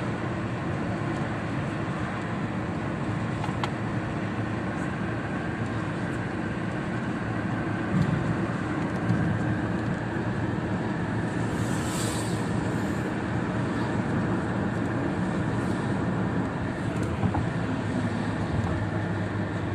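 Inside a car driving on a motorway in the rain: steady road and engine noise, with raindrops ticking on the windshield. About halfway through there is a brief high squeak.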